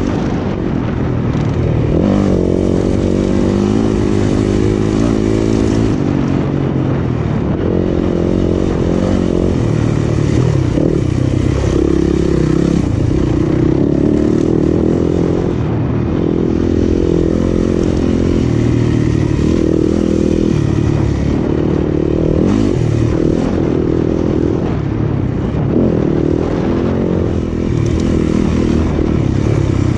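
Off-road dirt bike's single-cylinder engine being ridden hard, its revs rising and falling over and over as the throttle opens and closes.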